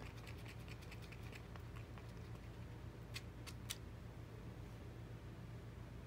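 Faint crinkling and ticking of a clear plastic parts bag being handled, with two sharper clicks a little past three seconds in, over a low steady hum.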